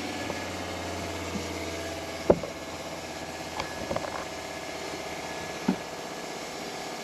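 Truck shower's electric water pump running steadily on test with a freshly replaced fitting, a few short knocks over it, the loudest about two seconds in.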